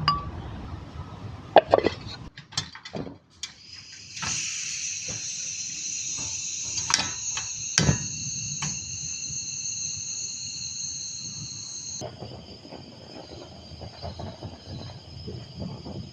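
A few sharp knocks and clinks of cooking gear being handled, then a steady high-pitched trill that runs on evenly and changes abruptly about twelve seconds in.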